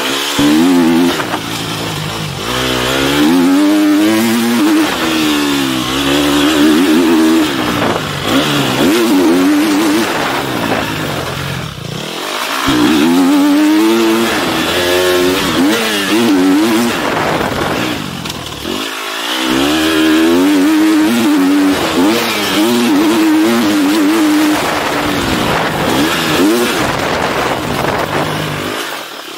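Motocross dirt bike engine heard from an onboard camera, revving up and dropping back again and again as the rider works the throttle and shifts along a dirt track. The throttle is shut off briefly twice, about a third and about two-thirds of the way through.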